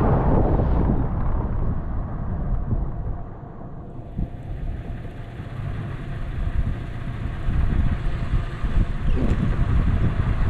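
Toyota FJ Cruiser's 4.0 L V6 running as the truck drives through a shallow river crossing, a steady low rumble with wind on the microphone. The sound changes abruptly about four seconds in, and a few short knocks come near the end.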